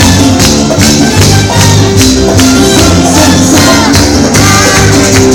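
Live cuarteto band playing loud dance music with a steady beat, bass and shaker or tambourine-like percussion.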